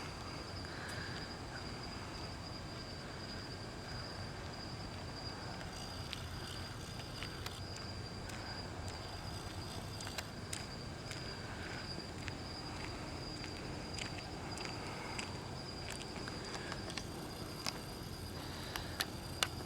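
Night insects trilling steadily at one high pitch, with a low hum beneath and a few faint clicks near the end.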